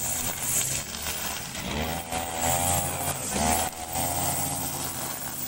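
Gasoline grass trimmer's small engine running as it cuts grass, revving up and dropping back a couple of times around the middle.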